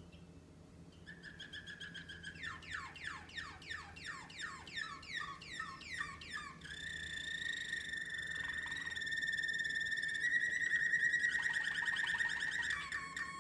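American Singer canary singing: a brief whistled note, then a run of quick repeated falling notes, then a long, steady rolling trill that grows louder, ending in a faster pulsed phrase.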